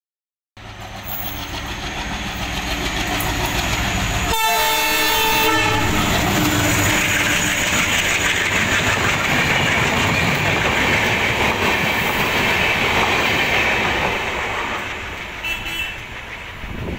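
Indian Railways express passenger train approaching at speed and passing close by. The locomotive's horn sounds once about four seconds in, for about two seconds, then the coaches roll past with a steady rushing noise that fades near the end.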